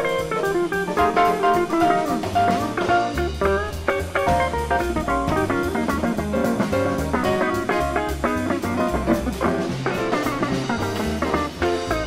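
Small jazz combo playing: jazz guitar lines over upright bass and drum kit with cymbals, the bass stepping from note to note more strongly from about two seconds in.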